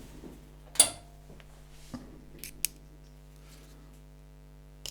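Sharp clicks and small scrapes of a stuck plastic insert being worked and pried out of a DIN plug's metal shell: one loud click about a second in, then a few fainter ticks.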